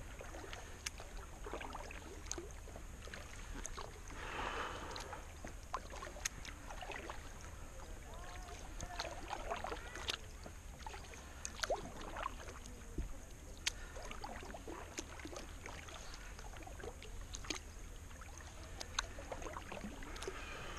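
Double-bladed kayak paddle strokes dipping into calm water, with irregular drips and small splashes off the blades.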